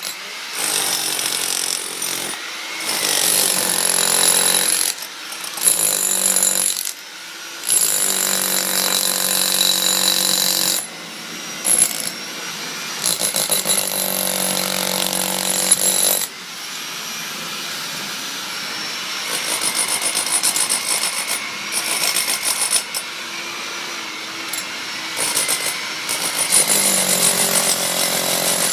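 Handheld electric power tools working stone, their motors whining in bursts of a few seconds that stop and start again several times, then running more steadily in the second half.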